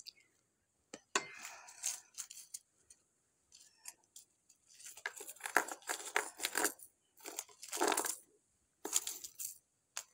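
Fried dried red chillies crackling and crunching as fingers crush them, in irregular crinkly bursts that grow denser and louder about halfway through.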